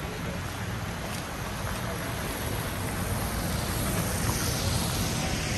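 Steady city street ambience: an even wash of noise with traffic and faint voices, growing a little brighter about four seconds in.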